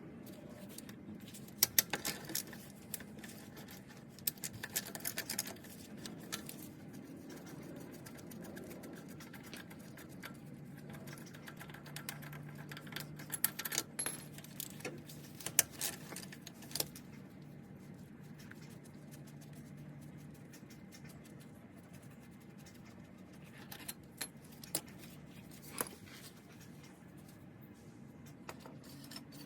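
Hand tools clinking and clicking against metal in several short bursts, as the A/C compressor's mounting bolts are undone; a faint low hum runs for about ten seconds in the middle.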